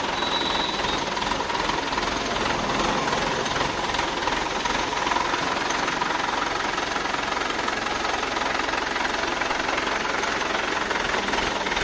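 Diesel engine of a JCB loader running steadily, with a dense clattering noise.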